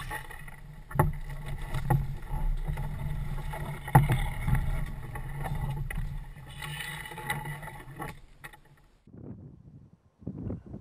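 Canoe being paddled through a narrow mangrove creek: steady low rumble of water on the hull and paddle strokes, with sharp knocks about a second in and again about four seconds in. The sound drops away about eight and a half seconds in.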